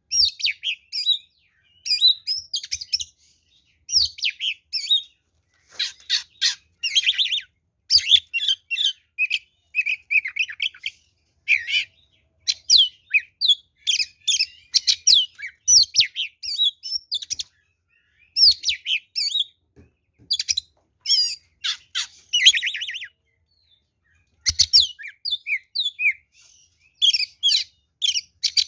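Oriental magpie-robin singing its full fighting song: rapid, varied phrases of high whistles and chattering notes in bursts of a second or two, broken by short pauses, with a longer pause about four-fifths of the way through.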